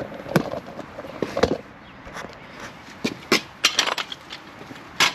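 Irregular clicks and knocks of hand work on an electric trailer jack, as its screws are removed and its cover is worked loose.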